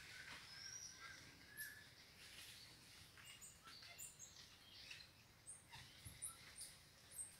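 Faint, high-pitched chirps and short thin whistles from forest animals, many of them, scattered irregularly throughout.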